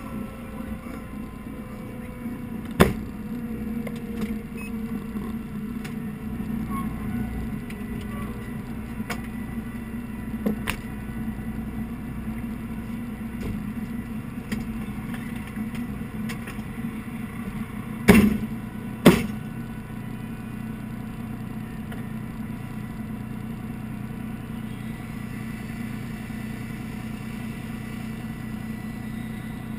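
Fire engine idling steadily, heard from inside its cab, with a few sharp knocks; the two loudest come about a second apart, around two-thirds of the way through.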